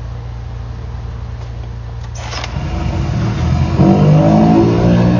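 Engine of a high-pressure drain jetter running steadily, then rising in pitch and loudness about two and a half seconds in as it comes under load, with a short hiss just before.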